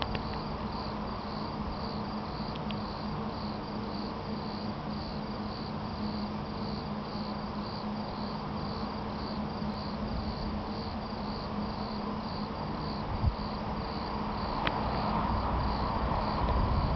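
Crickets chirping in a steady pulsing rhythm over a low hum. Over the last few seconds the rumble of an approaching suburban train grows louder.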